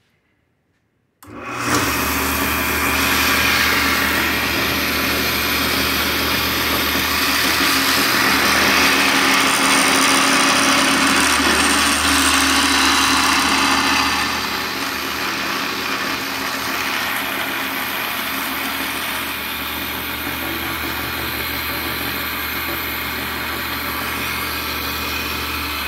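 Delta DP 220 drill press switched on about a second in and running at its highest belt speed: a steady motor hum with belt and spindle noise, slightly quieter after about 14 seconds.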